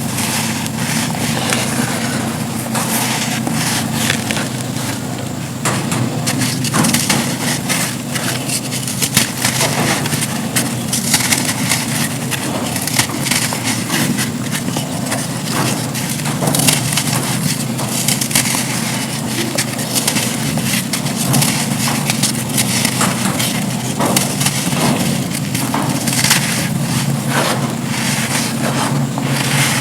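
Dry black sand slabs being crumbled, a continuous dense crisp crunching and crackling of breaking, grainy pieces.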